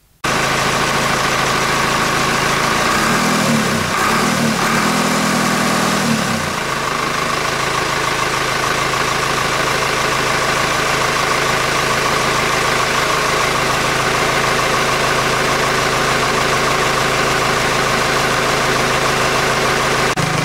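Nuffield 10/60 tractor engine running with its rocker cover off, warming up from cold: its speed wavers for a few seconds, then it settles to a steady idle.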